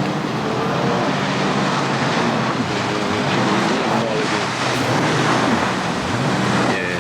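Sea-Doo RXT-X 300 jet ski engine running steadily at low revs.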